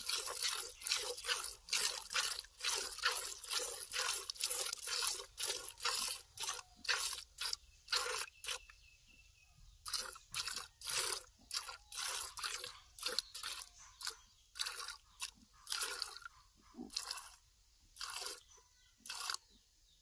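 Milk squirting into a plastic bucket as a cow is milked by hand, in a steady rhythm of about two to three squirts a second. The squirts stop for about a second and a half halfway through, then resume, coming less often near the end.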